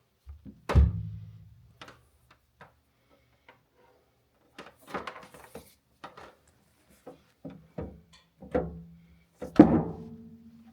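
A run of irregular knocks and thumps from objects being handled and bumped. The loudest comes about a second in and another near the end, and some leave a short low ring.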